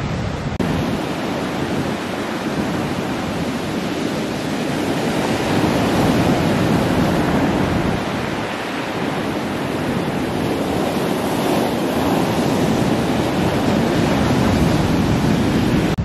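Sea surf washing onto the shore in a steady rush that swells and eases as the waves come in.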